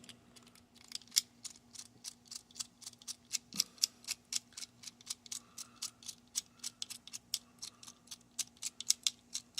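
Master Lock 875 four-wheel combination padlock's number wheels being turned by hand, clicking lightly at each detent in a long uneven run of about four or five clicks a second, as a new combination is set.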